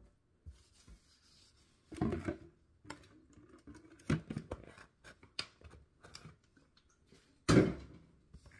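Things being handled on a granite kitchen counter close to the microphone: a series of knocks and short rubbing and scraping noises, with louder knocks about two seconds in and near the end.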